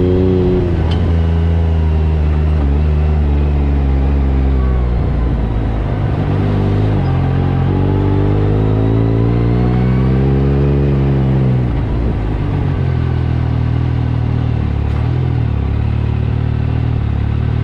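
Yamaha YXZ1000R SS's three-cylinder engine running under throttle, the revs rising and falling several times. About twelve seconds in the revs drop and it settles to a steadier, lower note.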